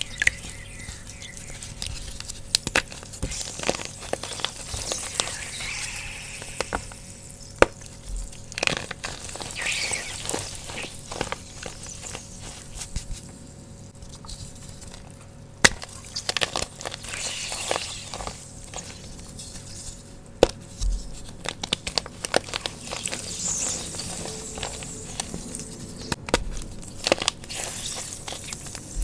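Fresh blocks of gym chalk being crushed and crumbled by hand over a tray of water: many dry crunches and crackles, with a fizzing sizzle where the chalk soaks up the water.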